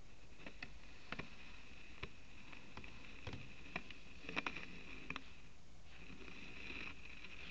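Aquarium air bubbler: irregular small pops and clicks of bubbles breaking, a few a second, over a faint steady high hiss. The pops stop about five seconds in.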